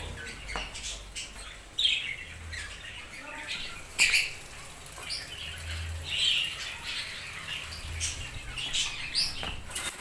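Caged budgerigars chattering: many short chirps and squawks, with a few sharp clicks, the loudest about two and four seconds in.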